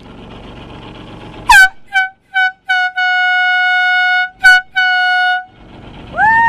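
Air horn sounding the finish of the swim as the swimmer clears the water: a string of short blasts, then a long blast, a short one and a final long blast, all on one steady pitch.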